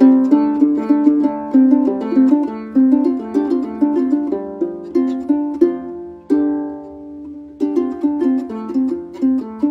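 A many-stringed harp with a gourd body, plucked by hand in a quick run of notes. Just past the middle a note is left ringing for about a second before the picking resumes.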